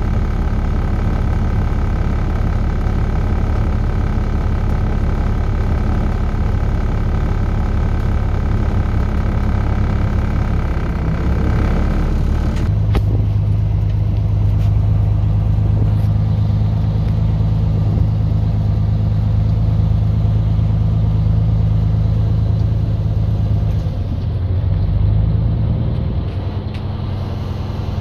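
2011 Peterbilt semi-truck's diesel engine running, heard from inside the cab as the loaded truck pulls away. A higher hum over the engine cuts off with a click about halfway through, the engine's low hum then holds stronger, and it eases off near the end.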